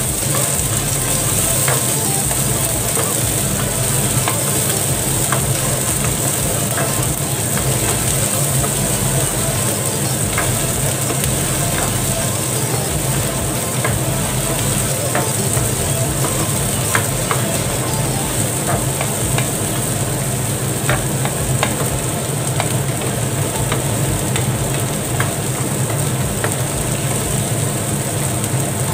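Diced onion and garlic sizzling steadily in oil in a nonstick frying pan as a wooden spatula stirs them, with scattered light scrapes and taps of the spatula on the pan, over a steady low hum.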